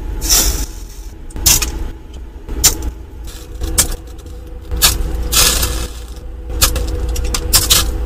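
Water drops sizzling on a hot surface, the evaporating noise of defrost meltwater hitting a refrigerator's heater: irregular short hisses and ticks, with a few longer hisses, over a steady low rumble.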